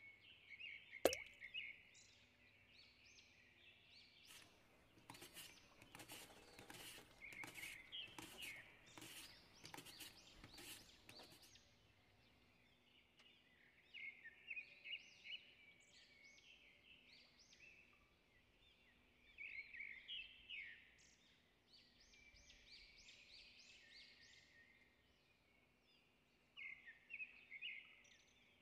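Faint birds chirping in short repeated calls, with a sharp click about a second in. This is followed by a run of scraping strokes lasting several seconds as potato is slid across a mandoline blade.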